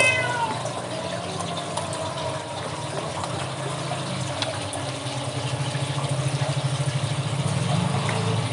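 A steady rushing noise with a low hum beneath it, which turns into a fast pulsing throb about halfway through. A cat meows right at the start.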